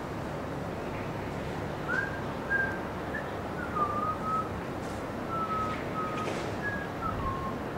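A person whistling a short tune: about nine clear notes, some held and some sliding down in pitch, starting about two seconds in. A steady hiss of background noise runs underneath.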